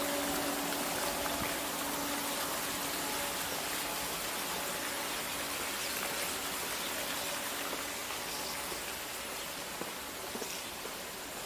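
Garden fountain water splashing in a steady hiss that slowly grows quieter. A faint low hum under it fades out in the first seconds.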